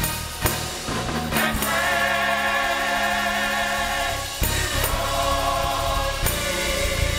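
Gospel choir singing with a live band of drum kit and keyboard. After some drum hits, the choir holds one long chord for about three seconds, then the drums come back in.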